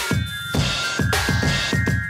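Electronic dance music with a steady, fast thumping beat and sustained synth tones.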